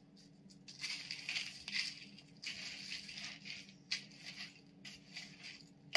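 A spoon stirring dry croutons in a bowl: irregular bouts of crunchy rustling and scraping, with a few sharp clicks.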